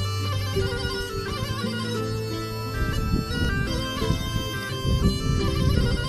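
Tulum, the Black Sea bagpipe, playing a folk melody over a steady low drone.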